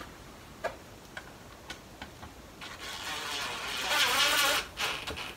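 A few light clicks, then a cordless impact driver runs for about two seconds, building up as it drives a pocket-hole screw into a plywood joint, and stops.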